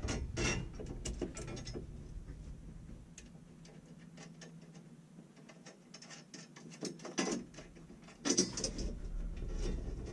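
Scattered clicks and small knocks of hand work on hanging hardware as a dehumidifier unit is set in place, with two louder knocks near the end.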